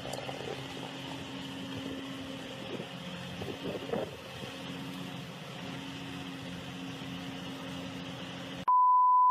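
A machine's engine running steadily, a low hum with a hiss above it. Near the end it cuts off suddenly and a single pure high beep tone sounds.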